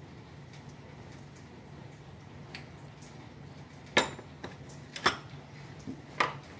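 A metal hand tool clinking against bolts on the underside of a car engine: a few sharp metallic clinks about a second apart in the second half, over a low steady hum.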